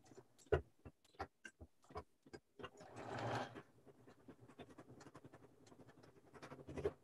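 Sewing machine stitching through fabric in short runs, the needle going in a fast, even rhythm that grows louder near the end; faint, heard over a video call.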